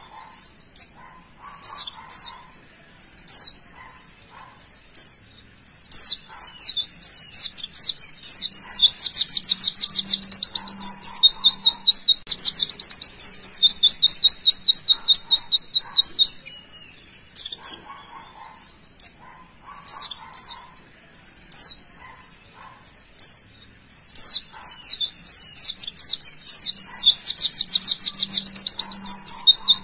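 White-eye (pleci) singing: scattered sharp chirps and sweeping whistles, then a fast rattling trill of rapid high notes held for about eight seconds, the showpiece 'tembakan' phrase. The scattered chirps return, and the rapid trill starts again about six seconds before the end.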